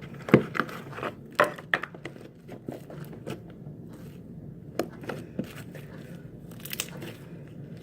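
Fluffy slime being squished and stretched by hand, giving off scattered sticky clicks and crackles, a few of them louder.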